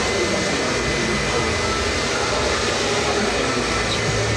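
A steady rushing noise of blown air, even and unbroken throughout.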